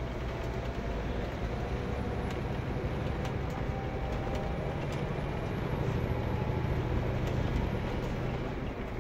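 A Scania K410 coach's rear-mounted 13-litre six-cylinder diesel and road noise, heard from inside the passenger cabin while under way. It is a steady low rumble with a few faint clicks and rattles, and it grows a little louder about five seconds in.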